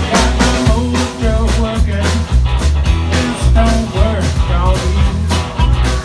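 Live rock-and-roll band playing: electric guitar and drums over a heavy, steady low end, with an amplified harmonica played into a hand-held microphone.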